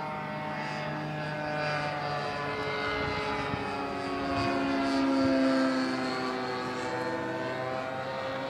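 Radio-controlled model airplane's propeller engine running overhead, its pitch shifting up and down as it flies. It is loudest about halfway through.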